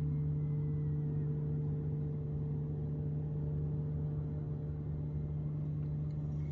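A steady low mechanical hum with a couple of fainter higher tones, like a motor running at constant speed.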